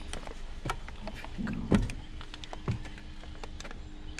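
Footsteps climbing wooden porch steps onto a deck: a few separate knocks of shoes on the boards, the heaviest near the middle.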